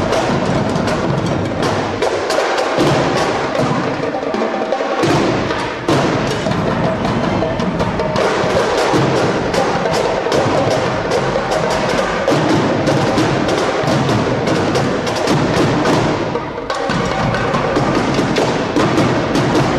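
Drum squad playing a fast, loud cadence of dense, rapid stick strokes. The bass drums drop out for about two seconds near the start and come back in, with a short lighter break about sixteen seconds in.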